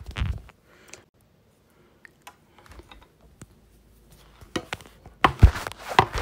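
Handling noise from a phone camera being picked up and moved about, with scattered clicks and knocks and a denser clatter of knocks near the end.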